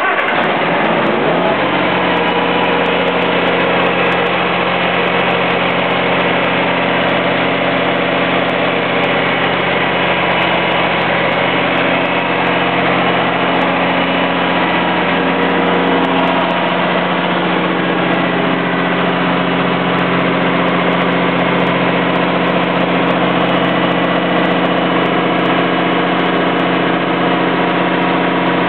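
Kohler 85 kW diesel standby generator starting on auto start, catching at once and coming up to speed within about two seconds, then running steadily at a constant pitch.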